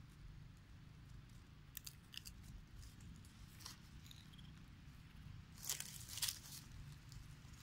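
Dry leaf litter crackling and crunching, a few sparse crisp crackles and then a louder cluster of crackles about six seconds in, over a low steady rumble.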